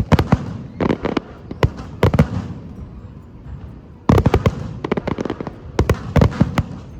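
Fireworks display: volleys of sharp bangs and crackling come in clusters. There is a quieter lull in the middle, and the bangs resume about four seconds in.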